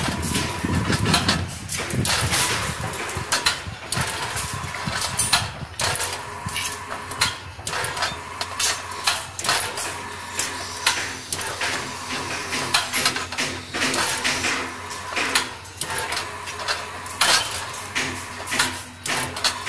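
Electric rebar bending machine running with a steady hum while a steel reinforcing bar is bent into a circular ring, the bar knocking and clanking irregularly against the machine's turntable and pins.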